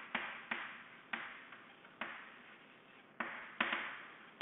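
Chalk tapping and scraping on a chalkboard as letters are written: a string of short, sharp strokes at an uneven pace, each fading quickly.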